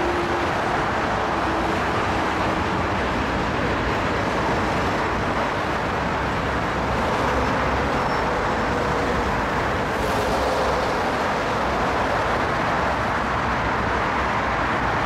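Steady road-traffic noise, an even hiss and rumble of passing vehicles, mixed over the first half with the rolling of the last cars of a BNSF work train, flatcars loaded with long rail, crossing a high bridge.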